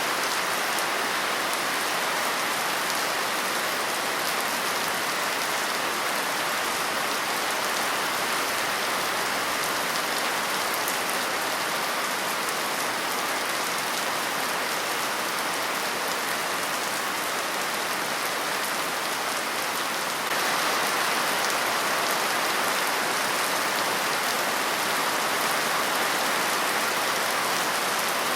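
Steady rain falling, an even wash of drops with no thunder. About two-thirds of the way through it steps up a little louder and brighter.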